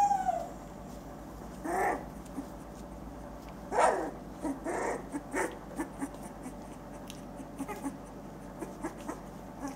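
Litter of newborn puppies whimpering and squeaking: a falling cry right at the start, then short cries about two and four seconds in and again around five, with scattered faint clicks and shuffling as they crawl over each other.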